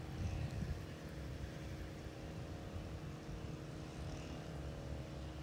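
Steady drone of a distant engine, with a low rumble of wind on the microphone that gusts about half a second in.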